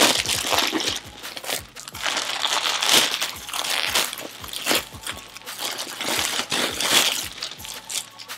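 A plastic poly mailer bag crinkling and rustling as it is handled and opened, a dense run of irregular sharp crackles.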